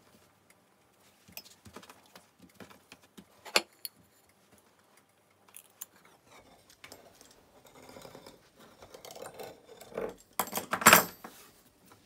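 A stainless pizza-wheel cutter rolls and scrapes around the rim of a glass plate laid on a thin round of dough on a marble counter, with scattered clicks of metal and glass. There is a sharp click about three and a half seconds in and a louder scraping rattle near the end.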